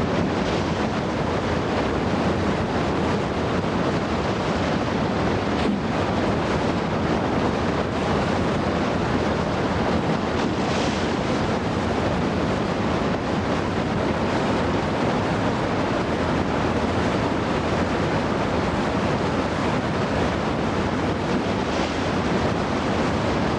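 Steady rushing roar of a fast Himalayan whitewater river pouring through boulder rapids.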